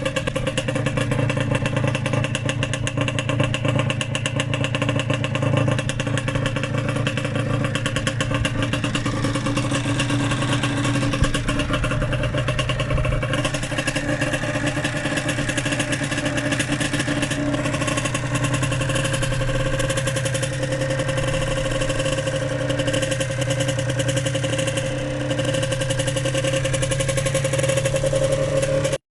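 Yamaha DTR125's two-stroke single-cylinder engine running steadily, with only small changes in speed.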